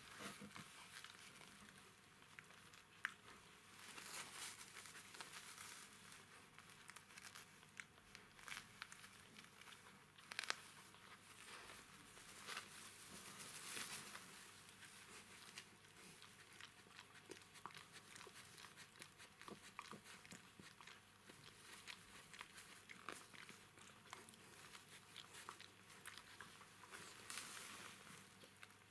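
Newborn Jack Russell Terrier puppies and their mother shifting on bedding: faint rustling with many small clicks and a few louder rustles.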